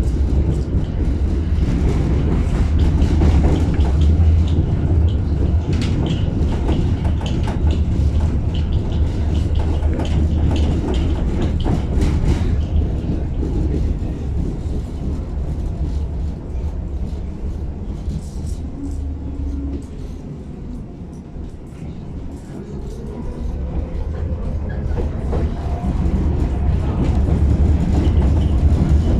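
Tatra T6B5 tram running along its track: a heavy rumble with wheels clicking over the rail joints. The noise drops away about two-thirds through, then builds again with a rising whine.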